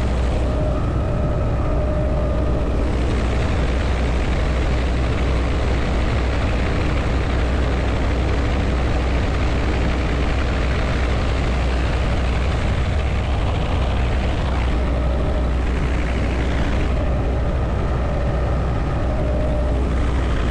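Helicopter in flight heard from inside the open-door cabin: a steady low rotor thrum under a loud, even rush of wind and engine noise.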